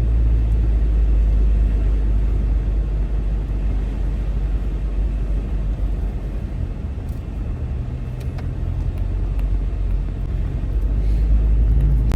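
Engine rumble and tyre noise inside a vehicle's cabin while driving on a rain-wet road, easing a little in the middle and building again near the end.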